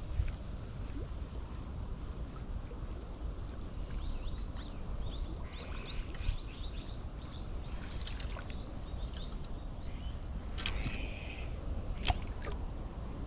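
River water lapping under a steady low rumble, with scattered short high chirps through the middle and a few sharp clicks, the sharpest near the end.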